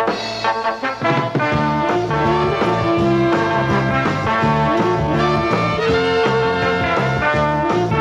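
Background music led by brass instruments, in an upbeat swing style with a steady beat.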